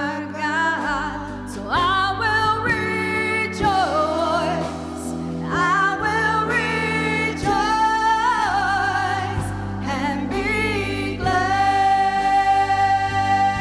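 Gospel worship singing over a steady instrumental accompaniment. The sung lines waver with vibrato, and a single long note is held from near the end.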